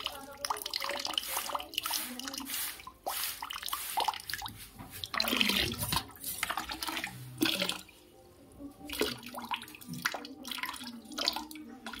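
Water trickling and splashing, with irregular drips and a few louder surges.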